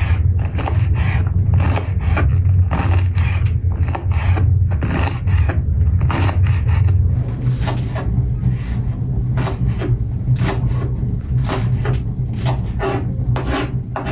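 Knife chopping green onions on a wooden cutting board: an uneven run of sharp chops, roughly two a second, over a steady low hum.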